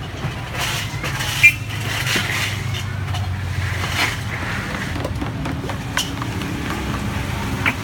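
Steady low rumble of background noise, with a few sharp clicks of a spoon against a bowl as batter is stirred; the sharpest click comes about a second and a half in.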